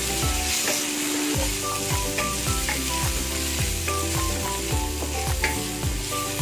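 Pork, garlic and onion sizzling in an oiled wok as they are stirred, with background music carrying a melody over a regular beat.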